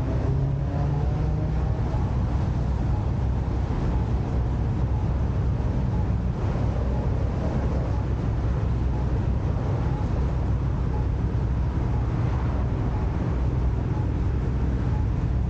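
Car engine idling steadily while stopped in traffic: a constant low hum with road and traffic noise around it.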